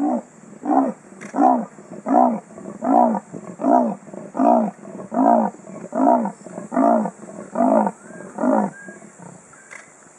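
Male leopard giving its sawing call: about a dozen hoarse, rasping strokes in an even rhythm, a little more than one a second, stopping about nine seconds in. It is calling to advertise for a mate.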